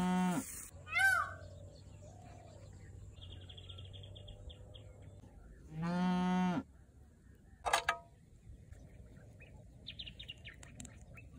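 Cattle mooing twice: long, steady-pitched moos about six seconds apart, one at the start and one about six seconds in. Between them come short falling bird calls and faint chirps.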